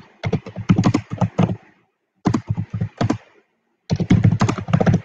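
Typing on a computer keyboard close to the microphone: three quick runs of keystrokes with short pauses between them.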